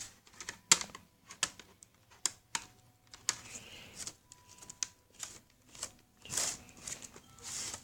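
Plastic snap clips of an HP laptop's housing and screen bezel clicking into place as the case is pressed together around its edge: a string of irregular sharp clicks, with a few softer scuffing noises near the end.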